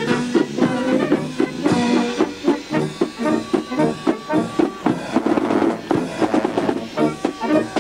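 Brass band music with trombones, trumpets and drums, playing a lively tune.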